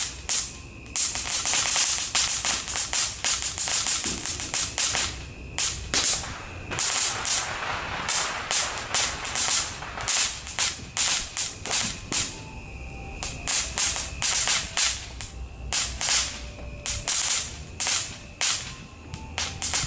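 Ground fountain firework spraying sparks, with a dense, rapid crackle of sharp pops over a rushing hiss that goes on for the whole burn.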